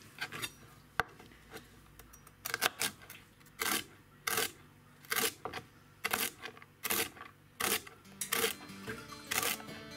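Chef's knife slicing through celery stalks and knocking on a cutting board: a steady run of single cuts, a little more than one a second, starting about two seconds in. Background music comes in near the end.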